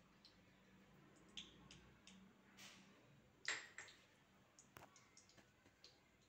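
Near silence: faint room hum with scattered small clicks and ticks, the sharpest about three and a half seconds in.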